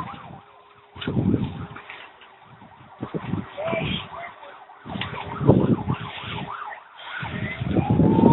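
A siren sounds over irregular bursts of noise, its wail rising in pitch near the end.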